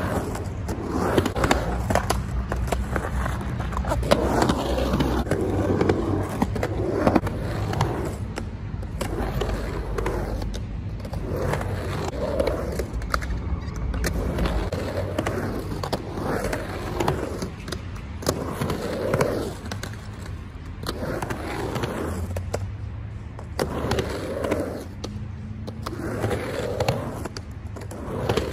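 Skateboard wheels rolling and carving on rough, grainy concrete mini ramps, a continuous rumble that swells and fades as the rider goes up and down the walls. Sharp knocks every second or two as the trucks and board hit the coping and land back on the ramp.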